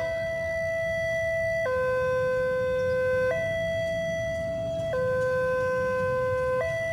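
Railway level-crossing warning alarm sounding a steady electronic two-tone signal that alternates between a low and a high note about every second and a half, over a low rumble. It signals that a train is approaching the crossing.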